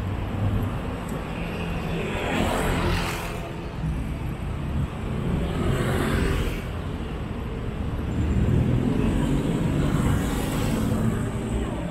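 Street traffic: a steady low engine rumble, with vehicles passing close by three times, each swelling and fading over a second or so.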